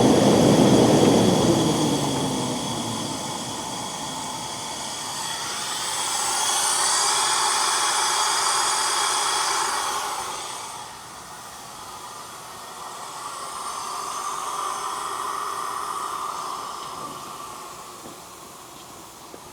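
Alup SCD 30 variable-speed rotary screw air compressor winding down, its pitch falling over the first two seconds, followed by two stretches of air hissing.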